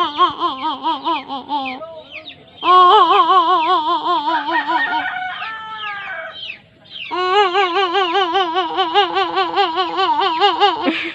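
A baby making long warbling vocal sounds, the pitch wobbling up and down about five times a second, in three stretches with short breaks about two seconds and six and a half seconds in. Shorter squeaky gliding sounds come just before the second break.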